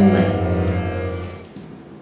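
Instrumental music with a steady low drone under held, sustained notes, fading out about one and a half seconds in.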